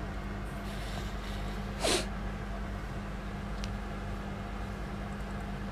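Steady low hum and hiss of an open microphone with no one talking, broken once about two seconds in by a short breathy noise from the person at the microphone.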